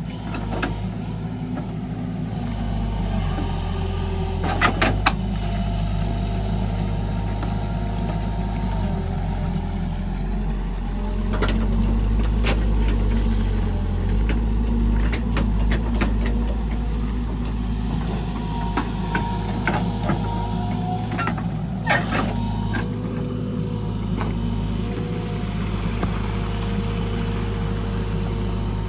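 JCB tracked excavator's diesel engine running as it digs mud from a canal, its note swelling and easing with the work, with a few sharp clanks and knocks from the bucket and arm.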